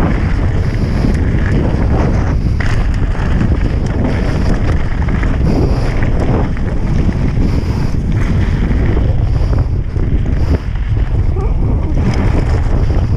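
Wind buffeting a mouth-held action camera on a fast mountain-bike descent, a loud steady rumble, mixed with the bike's tyres and frame rattling over a loose gravel trail.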